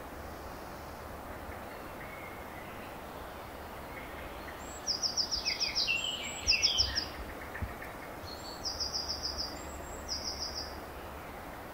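A small songbird singing in short phrases of rapid high notes, repeated several times from about five seconds in, over steady background noise.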